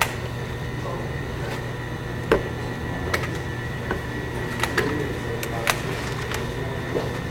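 Steady low hum with a thin high tone underneath, broken by scattered sharp clicks and knocks of things being handled.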